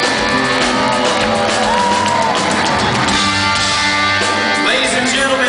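Live rock band playing at full volume, electric guitar to the fore over bass and drums, with one note bent up and held about two seconds in.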